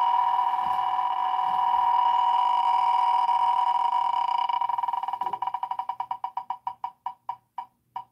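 A web name-picker wheel spinning on a laptop, its tick sound playing through the laptop speaker. At first the ticks come so fast that they run together into one steady tone; about five seconds in they break apart into separate ticks that slow and space out as the wheel comes to a stop.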